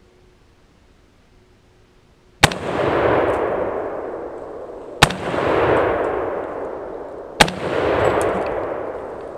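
Three gunshots about two and a half seconds apart. Each is a sharp crack followed by a long rolling echo that dies away over a couple of seconds.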